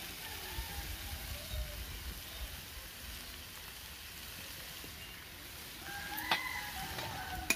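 Chicken pieces in oil and spice paste frying in a wok over a fire, a steady low sizzle: the curry at its slow-frying (kosha) stage.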